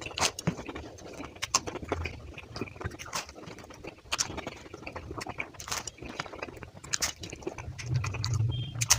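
Close-miked chewing and crunching of flaky fried pastry and samosa, a string of irregular crisp crackles and wet mouth sounds. A low hum swells about eight seconds in.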